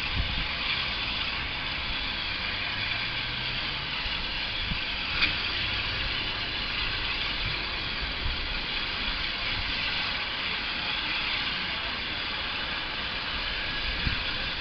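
Steam locomotive standing with steam hissing steadily over a low rumble, and one faint knock about five seconds in.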